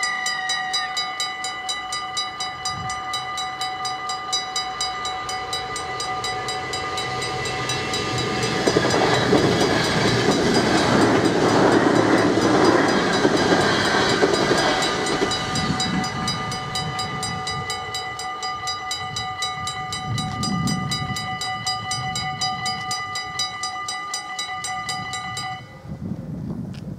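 Level-crossing warning bells ringing in a fast, steady series of strikes while an NS InterCity train passes over the crossing. The train's noise swells in, is loudest about halfway through and then fades. The bells stop suddenly about a second before the end, as the crossing clears.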